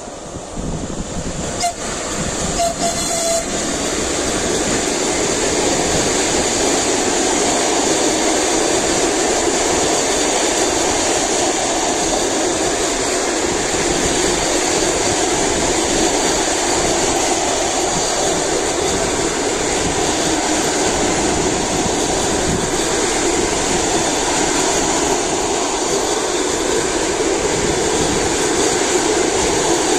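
Passenger train hauled by a ChS7 two-section electric locomotive passing close by. The wheel and rail noise builds over the first few seconds as the locomotive goes past, then holds as a steady rolling rumble while the coaches run by.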